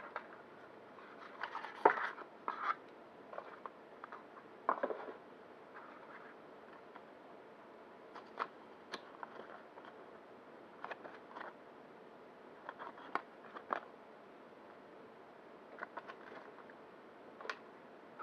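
Cardboard box and paper being handled: scattered rustles, scrapes and light taps as a paper warranty card is slid out of a cardboard box and turned over in the hands. The loudest rustle comes about two seconds in.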